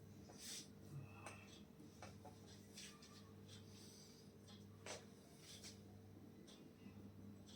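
Near silence: room tone with a faint low hum and a few soft clicks and rustles.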